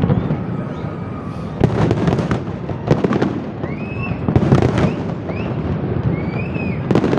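Aerial fireworks display: shells bursting with sharp bangs every second or so over continuous crackling from glittering bursts.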